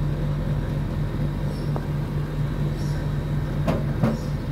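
Outdoor unit of a Panasonic split air conditioner running, a steady machine hum, with two short clicks near the end. The technician judges the unit short of R22 refrigerant.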